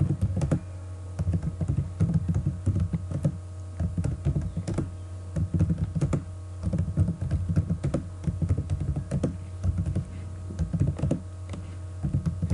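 Keys of a computer keyboard being typed in quick irregular runs of clicks, a word at a time with short pauses between words, over a steady low hum.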